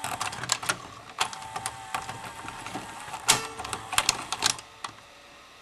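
Tape-loading mechanism of a worn Sony SLV-400 VCR running, with a faint motor whine and irregular clicks and clatter from its gears and cams, as a finger pushes the loading wheel round. The loading belt is worn and slipping, so the mechanism cannot load the tape alone. The clicking thins out near the end.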